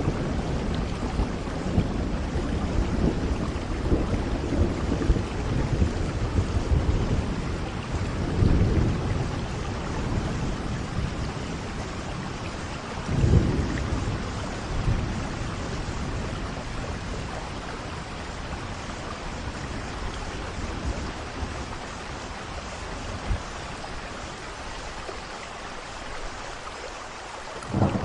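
Steady rain falling, with soft rolls of distant-sounding thunder: a rumble swells about eight seconds in and a stronger one around thirteen seconds, and the thunder dies down toward the end while the rain goes on.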